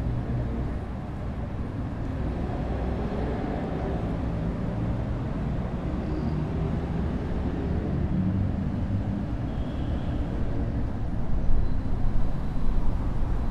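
Urban road traffic: vehicle engines running and passing over a steady low rumble. The engine hum is strongest near the start and again around two-thirds of the way through.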